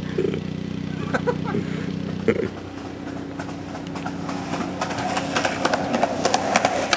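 A low, steady engine hum, fading somewhat after the first couple of seconds, with a few brief voices. A flurry of clicks and knocks comes in the last two seconds.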